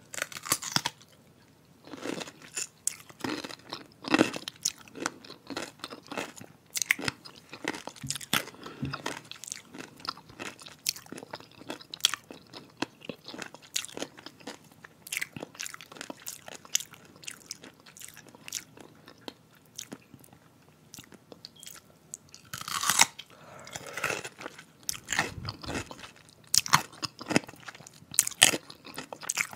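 Close-miked biting and chewing of a crisp Claussen kosher dill pickle spear: steady wet crunches throughout, with louder bites about 23 seconds in and near the end.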